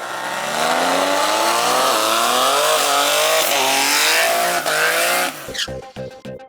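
Twin-turbo 3.8-litre GM Ecotec V6 drag car running flat out, its pitch climbing with brief dips, until it cuts off about five seconds in. Background music with a beat starts near the end.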